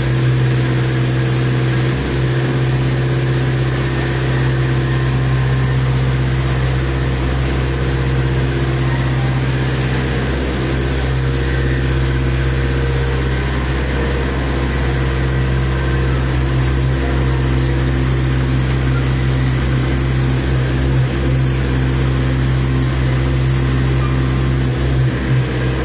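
Komatsu PC50 compact excavator's diesel engine running steadily at an even, unchanging speed.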